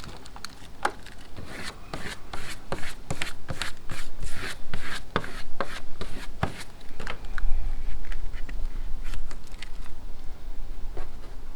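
Hinge tape being peeled off and handled: a run of sharp crackles and rustles of tape and paper, with a low rumble around the middle.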